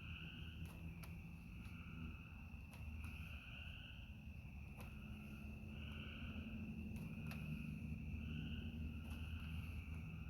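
Crickets trilling in a continuous night chorus, a high steady buzz that swells and fades every second or two, over a low steady hum with a few faint clicks.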